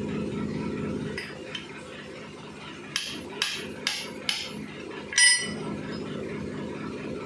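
A low steady hum fades out about a second in. Then metal strikes metal: four sharp taps about two a second, and a second later one louder clank that rings briefly.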